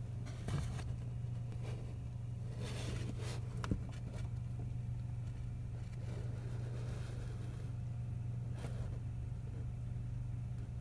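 A steady low hum, with a few brief rustles and scrapes of a handheld camera being moved, the sharpest a little under 4 seconds in.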